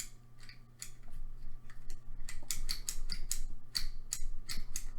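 A handheld fidget toy clicking over and over, about three to five clicks a second, quicker and louder from about halfway through.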